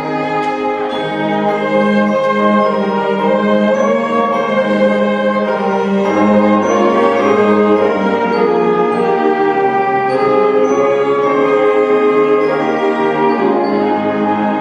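Church orchestra playing a slow instrumental piece: sustained chords that change every second or so, with a sharp accent about half a second in.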